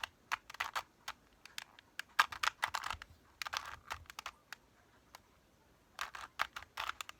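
A plastic Rubik's cube being turned by hand: quick runs of clicking, clacking twists with short breaks between them, and one longer pause of about a second and a half shortly after the middle.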